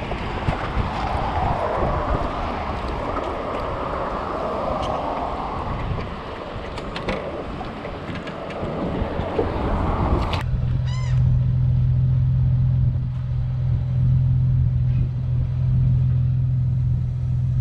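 Wind buffeting the microphone and water noise on an open boat, with a few small knocks, for about ten seconds. Then an abrupt change to a steady low engine hum.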